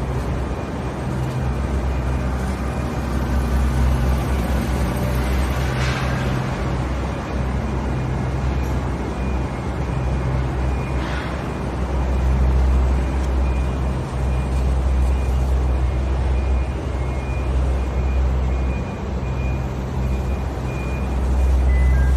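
Steady low mechanical hum with a faint, steady high whine over it, and two brief hissing swells about six and eleven seconds in.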